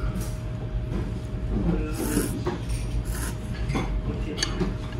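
Restaurant dining-room ambience: a steady low hum under faint murmuring voices, with several sharp clinks of a porcelain spoon and ceramic bowls in the second half.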